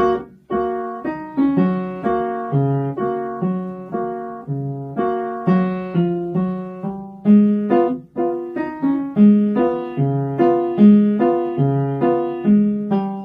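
Upright acoustic piano played by a young child: a simple beginner's piece, one struck note after another at about two a second over bass notes in the left hand, each note ringing and fading, with a brief break about eight seconds in.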